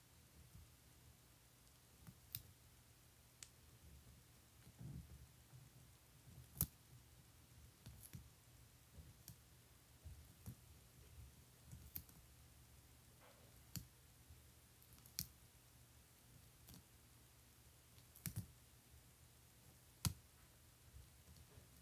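Baby Sulcata tortoise biting and tearing at curly kale: small, sharp crunching clicks at irregular intervals, about one every second or two.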